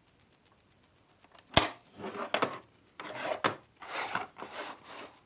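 Packaging being handled: a sharp knock about a second and a half in, then several seconds of rubbing and rustling with a few clicks.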